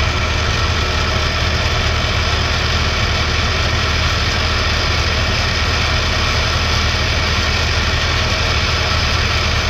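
Badland hitch-mounted electric winch running steadily as it respools its line, a constant motor whine over a vehicle engine idling underneath.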